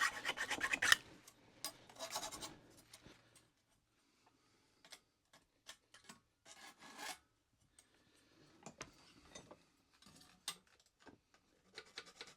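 Hand file scraping over the welded metal of a rake to take off its sharp edges: a quick run of strokes at the start, a few more about two seconds in, then scattered light scrapes and clicks, and another run of fast strokes near the end.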